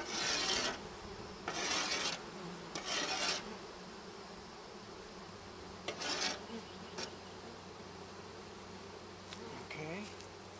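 A mass of honey bees from newly installed packages buzzing steadily around the hive entrance. Four short scraping rasps come in the first six seconds.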